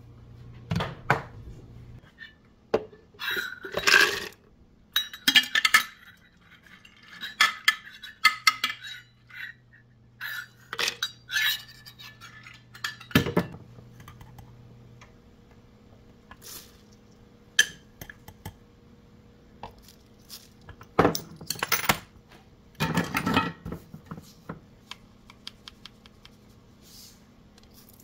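Raw cashews and then oats and salt tipped into a clear plastic blender jar. Irregular bursts of rattling clicks and clinks, with a few sharper knocks of the jar and utensils.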